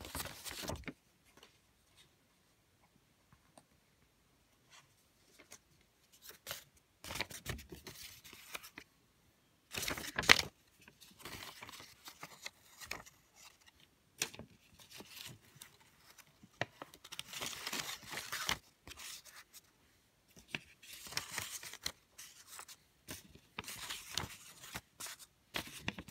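Intermittent rustling and scraping of paper and plastic as a DVD booklet and case are handled, with a sharp click about ten seconds in.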